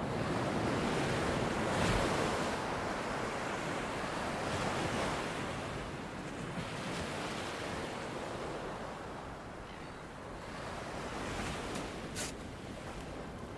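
Small waves breaking and washing up a pebble beach, a steady surf that swells and ebbs with each wave. A brief sharp click comes near the end.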